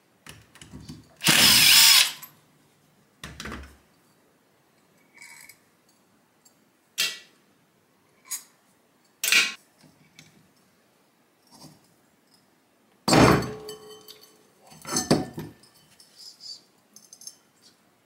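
A cordless drill-driver whirs for about a second, backing screws out of a refrigerator compressor's pump housing, with a shorter burst a couple of seconds later. Sharp metallic clicks and clinks of tools and small parts follow, with a louder clatter about 13 seconds in.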